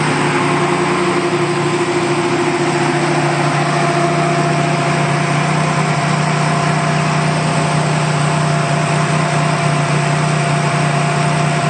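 Turbocharged Chevy Bowtie-block engine in a 1992 GMC Typhoon idling steadily, with a thin constant whine over the low drone.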